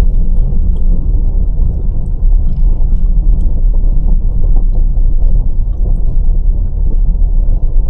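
Loud, steady low rumble of a road vehicle in motion.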